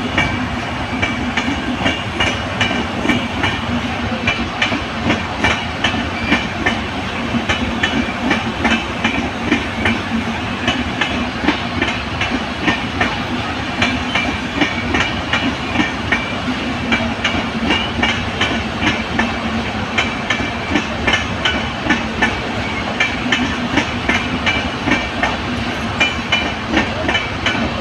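Passenger coaches of the Patna–Kashi Jan Shatabdi Express rolling past close by, their wheels clattering over the rail joints in a steady, fast clickety-clack of about two beats a second over a continuous rumble.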